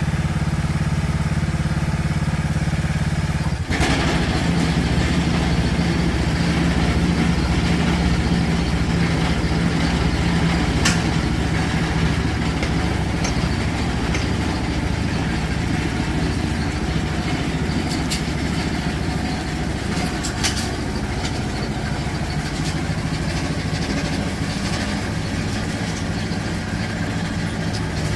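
Riding lawnmower engine running steadily. About four seconds in there is a click, and the engine note changes, then holds steady.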